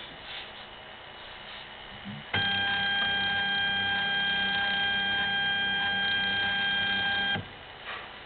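A steady electronic beep tone, held unchanged for about five seconds. It starts a couple of seconds in and cuts off abruptly.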